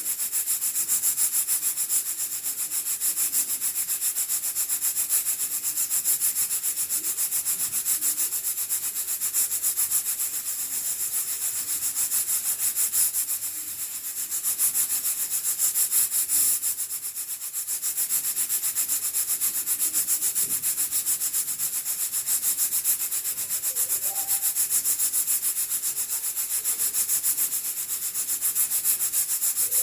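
Hawkins pressure cooker venting steam through its weighted pressure regulator: a steady, high hiss with a fast flutter, easing off briefly twice about halfway through. The cooker has reached operating pressure.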